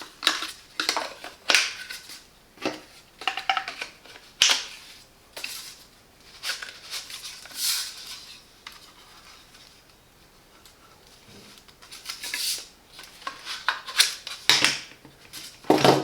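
Plastic vacuum-cleaner nozzles and brushes being handled and clipped onto an accessory holder: irregular clicks, knocks and rattles, with a quieter stretch in the middle.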